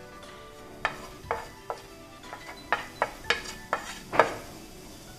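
About ten sharp taps and knocks, a plate rapping and scraping against a nonstick pan as grated mawa (khoya) is emptied from it into the dry pan; the loudest knock comes near the end.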